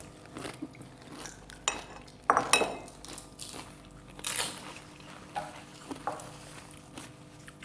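Scattered light clinks and knocks of plates and spoons, with a few crunchy bites of pani puri shells.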